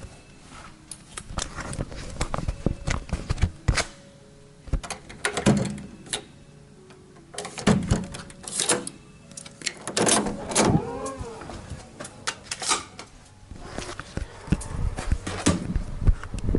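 Irregular knocks, clicks and rustling of things being handled in a small room, with a brief wavering tone about eleven seconds in.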